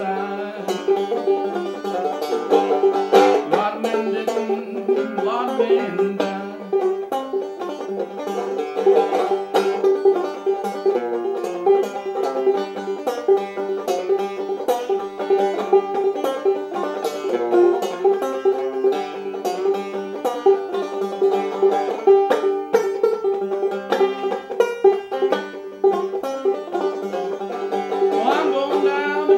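Five-string banjo played solo in old-time knock-down style, a downstroke way of playing close to clawhammer: a quick, even stream of plucked and brushed notes with one pitch ringing on steadily beneath them.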